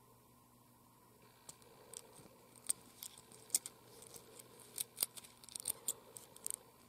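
Irregular run of small, sharp clicks from a steel automatic GMT wristwatch being handled in the fingers, with fingertips on its crowns. The clicks start about one and a half seconds in and stop near the end.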